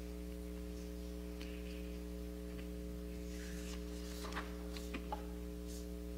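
Steady electrical mains hum from the sound system, with a few faint clicks and rustles.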